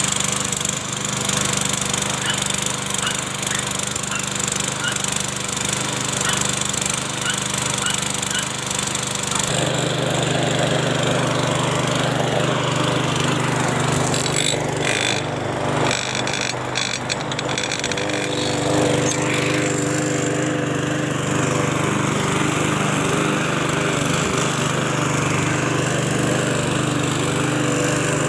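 Petrol walk-behind lawn mower's small single-cylinder engine running steadily as the mower is pushed over grass. About ten seconds in the sound thickens, and a cluster of clicks and knocks comes through a few seconds later.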